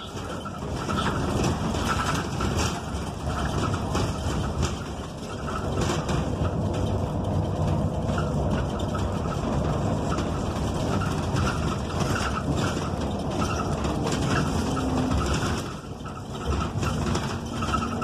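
Cabin noise of a NABI 45C-LFW transit bus underway, its Cummins Westport ISL G natural-gas engine running under steady road rumble. Rattles and squeaks come from the body and fittings, and the noise drops briefly near the end.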